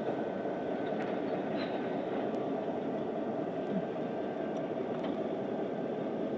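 Diesel freight locomotives running steadily, a continuous even noise with no change in pitch.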